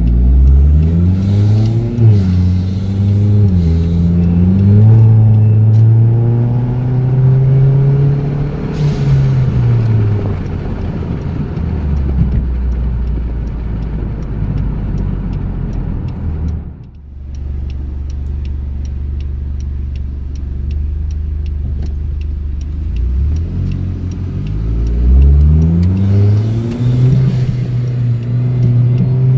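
Hyundai Genesis Coupe's turbocharged 2.0-litre four-cylinder engine pulling the car along, heard from inside the cabin with a window down. The engine note rises and falls through the gears, dips briefly about halfway, then climbs again near the end.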